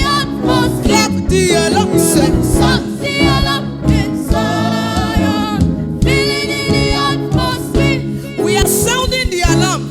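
Gospel worship music: voices singing with a live band accompanying.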